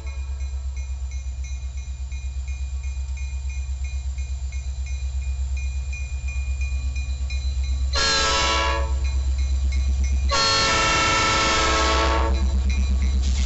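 A CN diesel freight train rolls past with a steady low rumble and a regular clicking from the passing cars. The locomotive's air horn, now moving away, sounds a short blast about eight seconds in and a longer one about two seconds later, its pitch sagging as it recedes.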